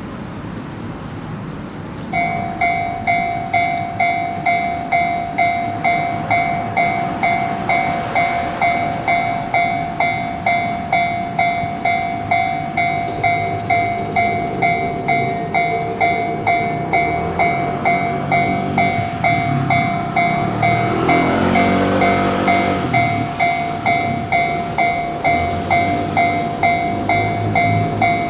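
Railway level-crossing warning signal starting about two seconds in and sounding a steady pulsing tone, about one and a half beats a second, while a Hokuriku Railway train rumbles past over the crossing in the second half.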